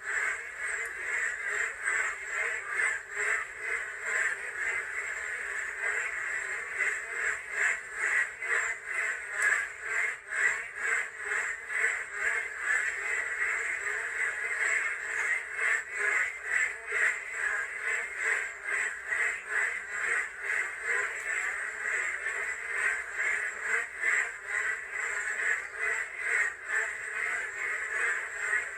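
A chorus of many frogs calling at once, a continuous stream of rapid, pulsing calls.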